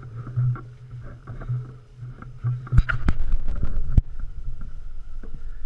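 Mountain bike rolling over a rough trail: a steady low rolling hum at first. From about three seconds in, a run of sharp knocks and rattles as the bike rides over rocky ground, one loud knock near the four-second mark.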